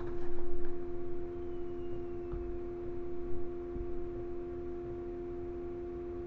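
Steady electrical hum made of several low tones. A brief rustle comes about half a second in, and a few faint clicks follow from sugar being spooned into a plastic container.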